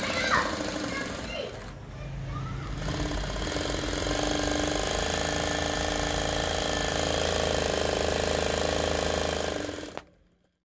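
Typical GC6158MD single-needle industrial servo sewing machine running at speed: a steady, rapid clatter that starts about three seconds in and stops abruptly shortly before the end.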